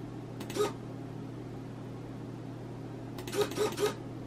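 SG90 micro servo point motor whirring briefly as it drives the points' tie bar through a wire, once about half a second in and three times in quick succession near the end, over a steady low electrical hum.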